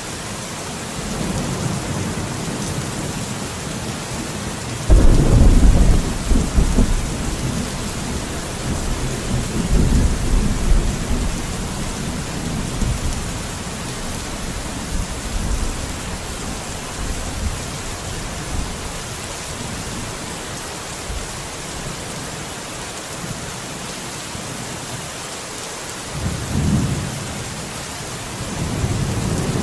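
Steady rain with thunder: a sudden loud thunderclap about five seconds in that rolls and rumbles for several seconds, then quieter rain, with another shorter low rumble near the end.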